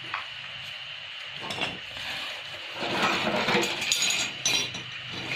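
Hand tools and metal engine parts clicking and clinking while a cover is fitted to a diesel engine, with a couple of single clicks at first and a busy run of quick metallic clicks and rattles from about three seconds in.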